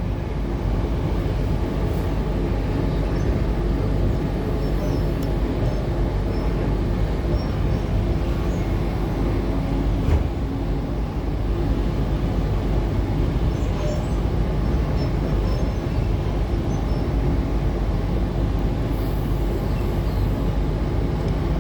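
A Tangara electric multiple unit running along the track, heard from inside the carriage: a steady low rumble of wheels on rail with a faint steady hum, and a single knock about ten seconds in.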